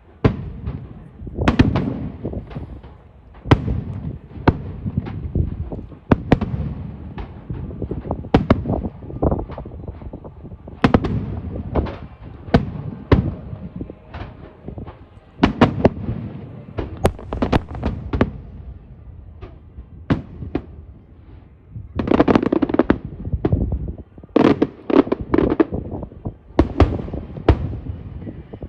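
Aerial fireworks shells bursting one after another, with sharp bangs and rumbling echoes and denser volleys about three-quarters of the way through.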